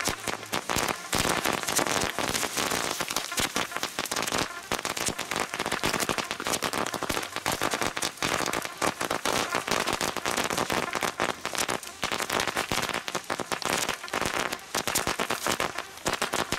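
A string of firecrackers going off in one long unbroken run, the small bangs so close together that they blur into a dense crackle like heavy rain.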